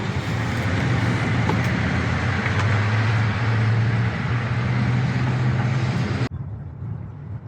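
A steady engine or motor noise with a low hum, cutting off suddenly a little after six seconds, leaving quieter background noise.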